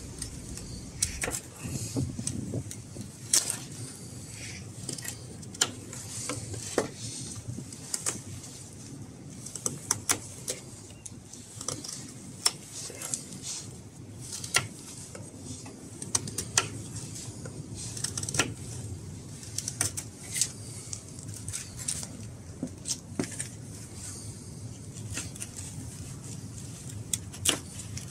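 Bushcraft knife carving a notch into a fresh green branch: irregular sharp cuts and scrapes, one or two a second, as chips of wood come away.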